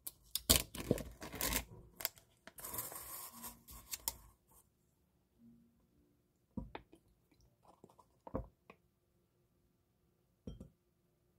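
Plastic packaging rustling and crinkling in a run of noisy bursts, followed by a few separate knocks and taps.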